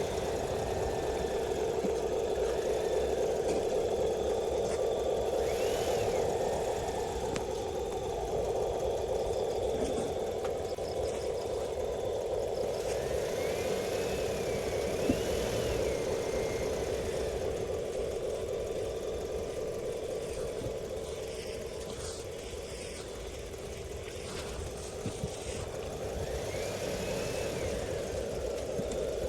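Radio-controlled excavator and truck models running: a steady hum with several short electric-motor whines that rise and fall as the models move.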